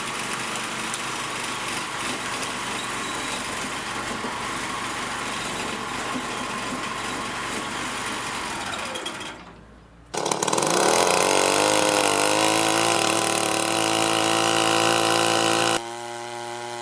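Powered machinery in three edited segments. First a steady, noisy machine running, which fades out about nine seconds in. Then, suddenly, a louder engine or motor revs up to a high, steady whine. Near the end it cuts abruptly to a quieter, steady engine drone.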